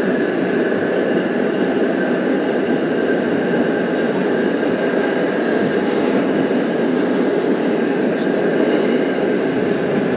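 Budd R32 subway train running steadily through a tunnel, heard from inside the car: a loud, even rumble of wheels on rail with a faint steady high whine over it.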